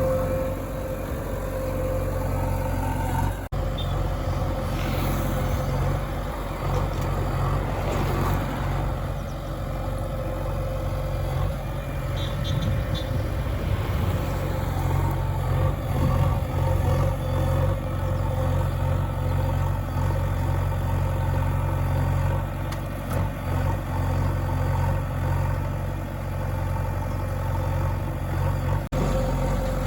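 Heavy vehicle's engine running steadily with a low drone, broken by two brief dropouts, one a few seconds in and one near the end.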